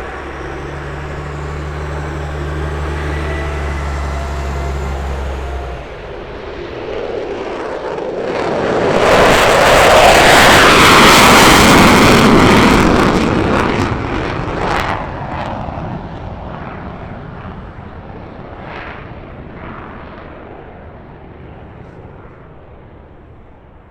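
Military fighter jet taking off and passing: the jet roar swells to a loud peak about ten seconds in, crackles as it climbs away, then slowly fades. A steady low drone underneath stops about six seconds in.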